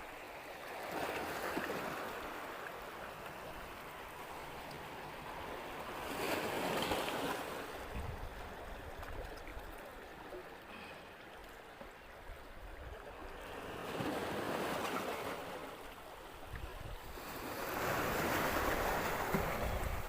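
Sea waves breaking and washing up a beach: a rushing surge that swells and falls away four times, every four to six seconds.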